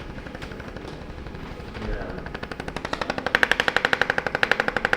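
Rapid, even mechanical tapping at about a dozen strikes a second from a handheld percussion instrument used in chiropractic treatment. It is faint at first and grows loud about three seconds in.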